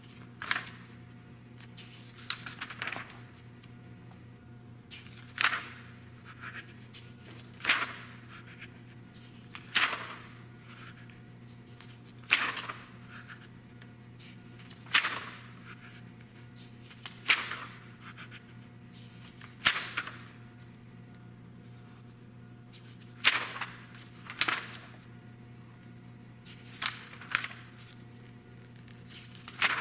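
Pages of a glossy print magazine being turned by hand, about a dozen turns, one every two to two and a half seconds, each a brief papery swish and flap. A faint steady low hum runs underneath.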